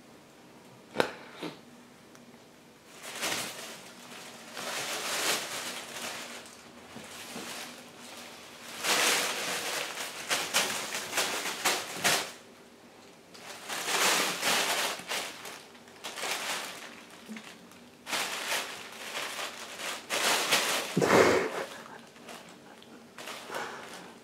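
Thin plastic carrier bag crinkling and rustling in bursts of a few seconds as a cat wriggles and rolls about inside it, with a sharp tap about a second in.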